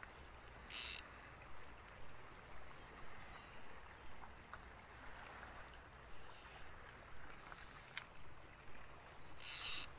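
Fly line being pulled by hand on a fly rod: soft, regular pulls about twice a second, with two short, loud, hissing rasps of line being drawn, one about a second in and one near the end. A creek flows faintly underneath.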